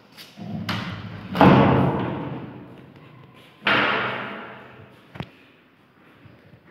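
Two heavy thuds of a wooden panel door banging, each followed by a long echo in a bare, empty room, then a short sharp click of the latch.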